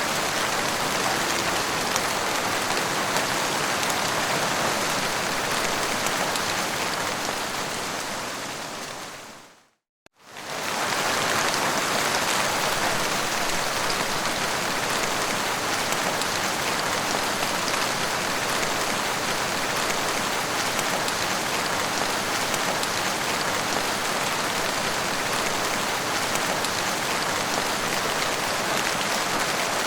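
Heavy rain falling steadily, a dense even hiss. It fades away to a moment of silence about ten seconds in, then comes back almost at once at full strength.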